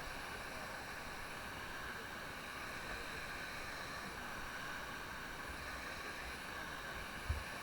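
Steady rushing of river water around a rubber raft, with a single low knock near the end.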